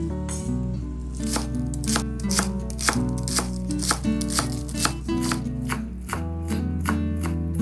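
Chef's knife chopping green onions on a bamboo cutting board, steady strokes about two a second, over background music.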